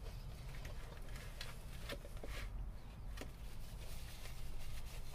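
Close-up eating sounds: chewing and mouth noises with a few faint, short crisp clicks, over a low steady hum.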